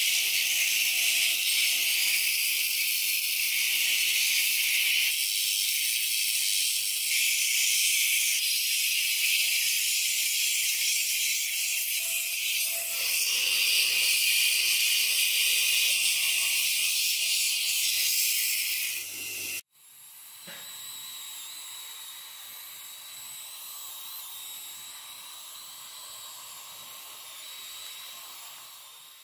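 Belt grinder's abrasive belt grinding the steel axe head, a loud, steady hiss. It cuts off abruptly about two-thirds of the way through and gives way to a quieter steady hiss with faint thin tones.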